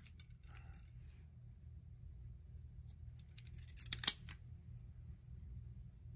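Metal clicks from a Charles Daly 601 DPS shotgun trigger group as its hammer and trigger are worked by hand, with faint handling clicks at first and a quick run of sharp clicks about four seconds in, the loudest two snapping close together.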